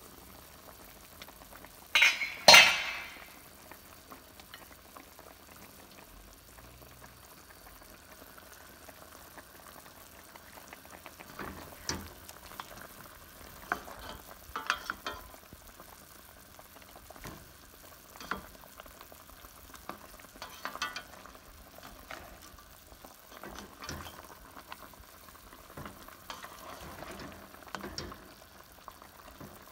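A metal clank about two seconds in, as the stainless steel pot lid is set down. Then a utensil stirs and scrapes in a stainless pan of chicken simmering in adobo sauce, with short knocks against the pan over a low bubbling sizzle.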